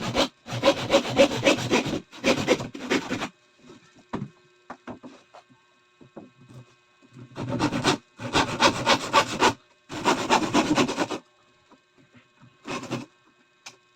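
A hand tool rasping on wood in long strokes, about a second each: a run of four strokes, a pause of several seconds, then four more.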